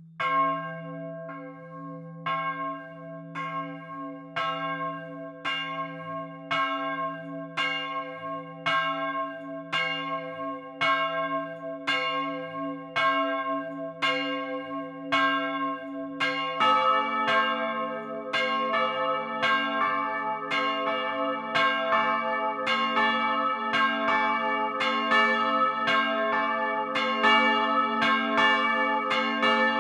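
Swinging bronze church bells of a motor-driven three-bell peal. One bell strikes about once a second, and a second, deeper-toned bell joins about halfway through, its strokes falling between the first bell's. A low steady hum lies underneath.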